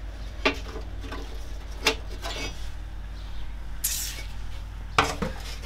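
Handling noises from the end plate of a classic Mini heater unit's blower housing being worked loose and lifted off: three sharp clicks spread through, with a brief scrape about four seconds in.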